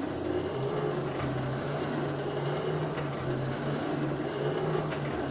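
Forge blower driving air into a coal fire that is heating steel pipe, running with a steady low hum that comes up to speed about half a second in.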